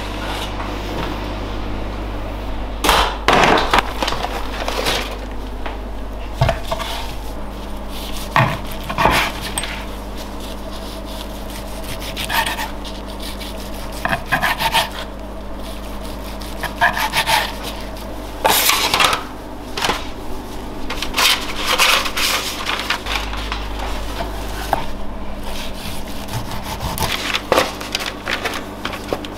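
A long slicing knife sawing through smoked brisket and scraping on an end-grain wooden chopping board, in short strokes that come in irregular clusters with pauses between.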